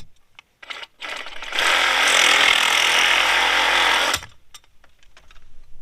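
A handheld power tool runs in one steady burst of about two and a half seconds, then stops abruptly, with a few small clicks and knocks of handling before and after.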